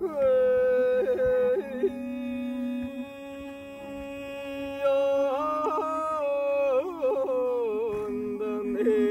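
A man singing long, drawn-out high notes with quick ornamental wavers and breaks in pitch, the melody rising about halfway through and falling near the end. Underneath, a morin khuur (Mongolian horsehead fiddle) is bowed on a steady low note.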